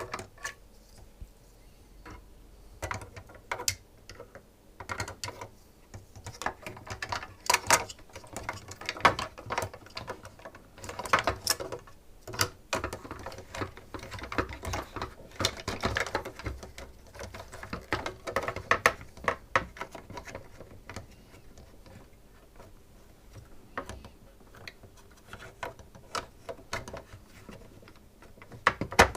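Irregular clicks, taps and rattles of SodaStream plastic parts being handled and worked on by hand, busiest through the middle, with a quieter lull later on before a few more clicks.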